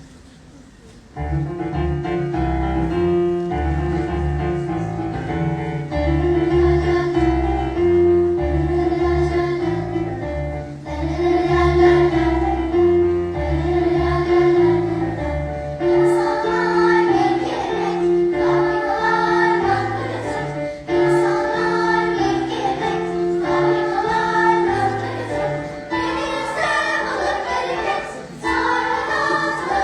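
Children's choir singing in several parts over instrumental accompaniment with a moving bass line, starting about a second in.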